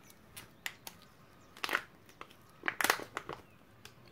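Plastic crinkling from a sachet of mica pigment powder being handled, in short bursts about two seconds in and again around three seconds, with a few light ticks between.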